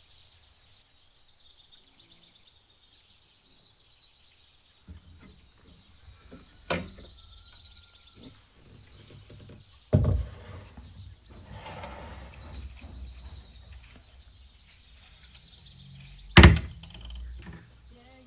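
Household handling sounds: three sharp knocks, the last and loudest near the end, as a plastic jar of brined olives is put away in a wooden cupboard and the door is shut. Birds chirp faintly throughout.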